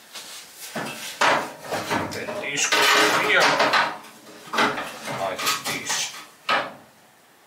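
Metal clanking and scraping as old scooter frame parts and a steel body panel are handled and set against each other on a workbench. A run of knocks and scrapes dies away near the end.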